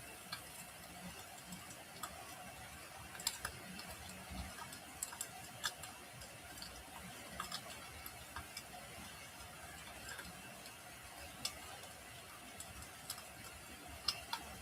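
Wood fire crackling: irregular sharp pops and snaps over a faint steady hiss.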